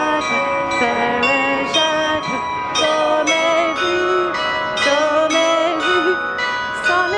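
Music with bell-like chimes struck about twice a second, their overtones ringing on, over a wavering melody.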